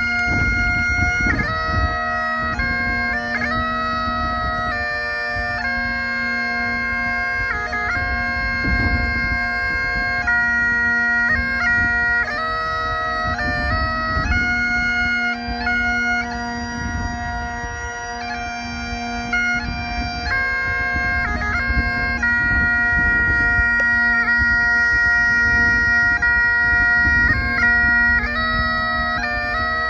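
Bagpipes playing a tune: a melody of changing chanter notes over an unbroken steady drone, with a low rumble underneath.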